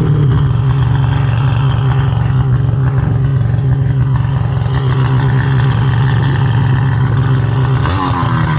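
Snowmobile engine running steadily, its pitch dropping briefly near the end.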